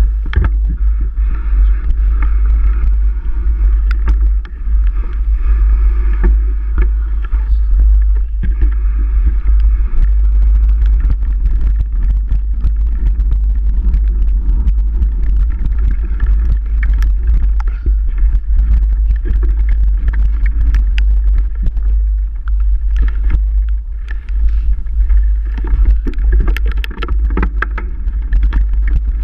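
Mountain bike in motion over rough ground: a heavy, steady low rumble on the microphone with frequent rattles and knocks from the bike.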